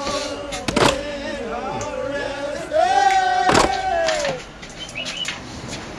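Men's voices in a drawn-out sing-song, with one long held note near the middle, and a couple of sharp knocks, one about a second in and one just past the middle.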